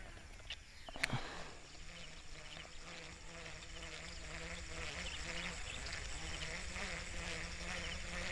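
Baitcasting reel being cranked on a lure retrieve: a steady, faint whirring buzz from the reel's gears, starting about two seconds in, after a sharp click about a second in.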